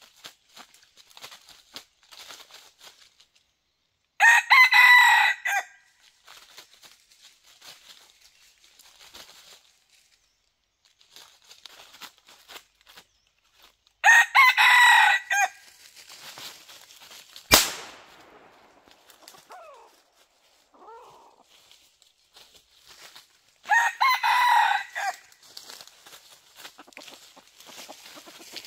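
Rooster crowing three times, each crow about a second and a half long and about ten seconds apart, with light rustling in dry leaves between. A single sharp click falls between the second and third crows.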